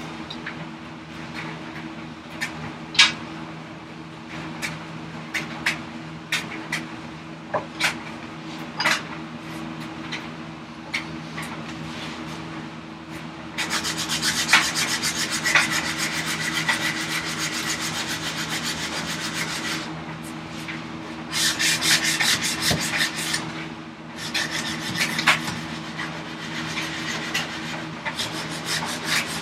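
A hand rasp working a wooden vise chop. Scattered light scrapes and clicks come first; then, from about halfway, steady runs of quick rasping strokes follow, with a couple of short breaks.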